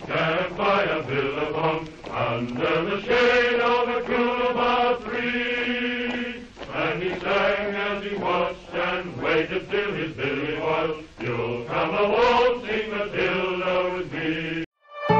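Voices chanting a slow, melodic line in held notes, stopping abruptly just before the end.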